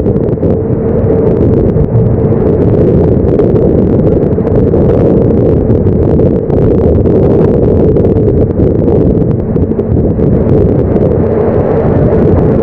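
Storm wind buffeting the microphone on a fishing boat's deck at sea, a loud, steady rumble with no let-up, with a steady hum running underneath it.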